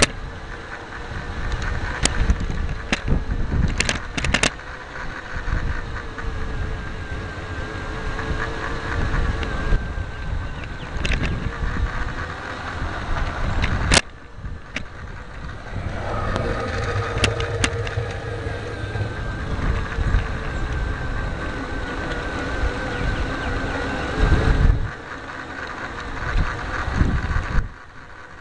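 Bachmann large-scale model rail truck's small electric motor and gearing whining steadily as it runs along garden railway track, heard from right on the vehicle. Sharp clicks come now and then from the wheels crossing rail joints and track, over a low rumble.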